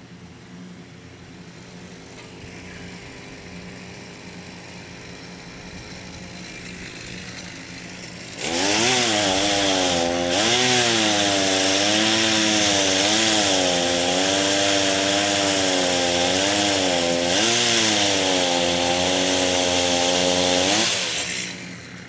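Two-stroke chainsaw idling, then opened to full throttle about eight seconds in and cutting into a white pine trunk for about twelve seconds, its pitch wavering as the chain bogs and recovers in the wood, before it drops back near the end.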